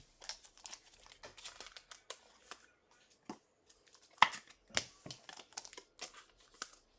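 Plastic packaging crinkling and rustling as trading cards and their wrappers are handled, with a couple of sharper snaps about four and five seconds in.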